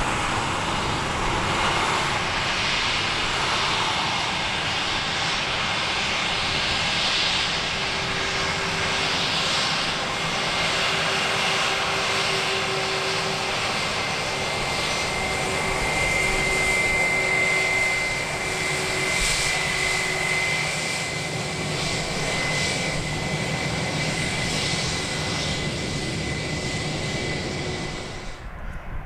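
Airbus A320-232's IAE V2527 turbofan engines running, a steady rushing jet noise with a high, steady fan whine over a lower hum. The sound drops away suddenly near the end.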